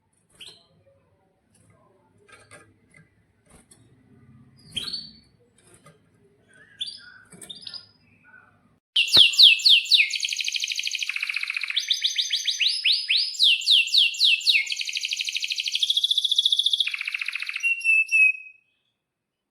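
Domestic canary singing. Faint scattered chirps come first, then about nine seconds in a loud, continuous song of fast trills and rolls that stops about a second before the end.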